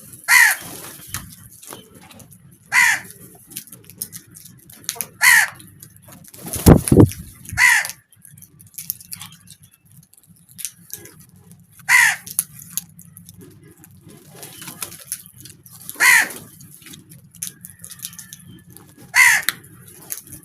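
Crows cawing: seven single harsh caws spaced a few seconds apart, each one dropping in pitch. A loud low thump comes about a third of the way in, over a faint steady low hum.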